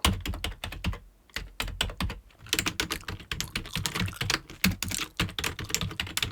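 Rapid typing on a computer keyboard: quick runs of keystrokes with a brief pause a little over a second in.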